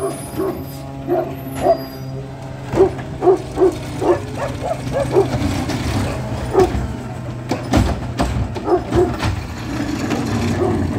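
Natural-gas side-loader garbage truck running while its hydraulic automated arm lifts a wheeled cart and tips it into the hopper, with a cluster of sharp knocks about eight seconds in as the cart is shaken out. A dog barks in short repeated yaps throughout.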